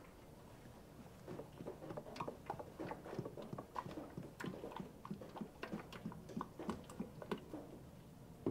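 Motor oil glugging out of a plastic jug into a metal funnel: a faint, irregular run of gurgles and small pops that starts about a second in.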